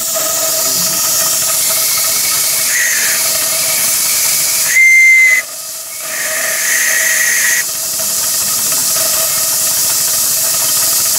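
Ransomes 2-inch-scale compound traction engine model in steam: a steady hiss of escaping steam, with three short toots of its steam whistle, the middle one the loudest.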